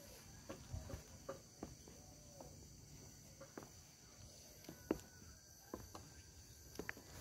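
Quiet outdoor ambience of insects chirping in a steady high-pitched chorus, with a few sharp clicks and soft knocks scattered through it, the loudest about five seconds in.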